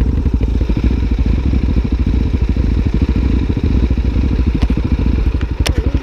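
Supermoto motorcycle engines idling at a standstill with an even, rapid thumping pulse. A few sharp clicks come near the end.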